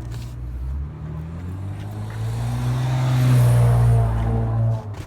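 A motor vehicle's engine going by, swelling to its loudest about three to four seconds in, then cutting off suddenly near the end.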